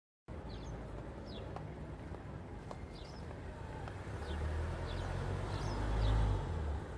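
Small animals chirping outdoors: short, high-pitched, downward-sliding chirps repeating irregularly about once or twice a second. A low rumble underneath swells toward the end.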